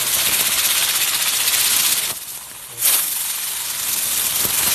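Small ground firework hissing as it sprays out sparks and smoke. The hiss cuts out about two seconds in, then bursts back on abruptly less than a second later and keeps going.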